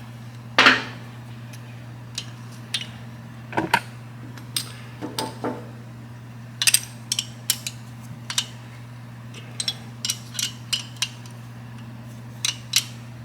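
Scattered metallic clinks and taps of hand wrenches on a Harley Twin Cam's adjustable pushrods as the jam nut is run down and locked, with a sharp clank about half a second in. A steady low hum runs underneath.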